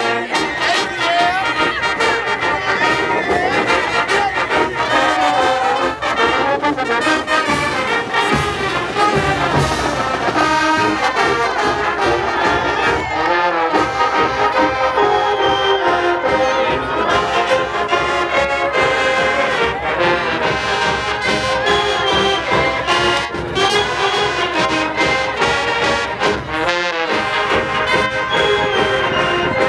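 Marching band playing: sousaphones and other brass over drums.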